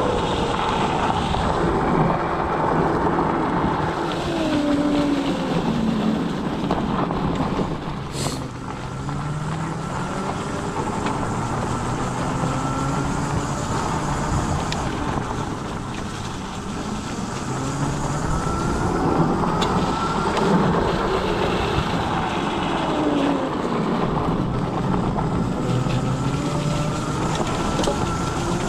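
Riding a scooter: steady wind and road noise on the microphone, with a whine that glides up and down in pitch.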